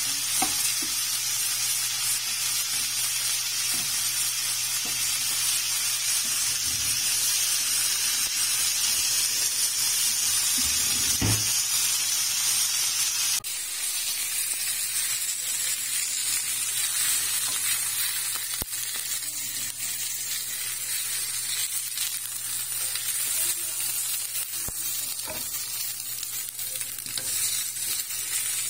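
Marinated chicken frying in a hot ridged grill pan, a steady high sizzle that eases slightly about halfway through, with a few light clicks from a spatula against the pan.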